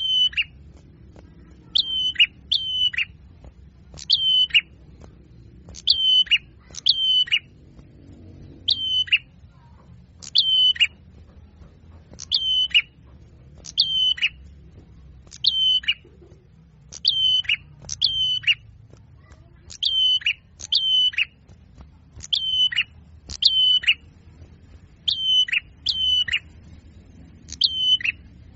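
Small songbird calls from a bird-lure recording: short, sharp notes, mostly in pairs, repeating about every one to two seconds, each note falling quickly in pitch.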